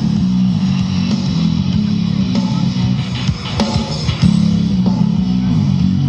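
Background rock music carried by a low guitar riff of sustained notes that change pitch every second or two.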